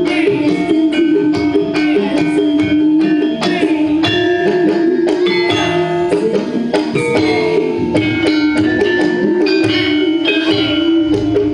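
Live campursari music played through a PA: a woman sings in long, wavering phrases over gamelan and drums, with many struck and plucked notes.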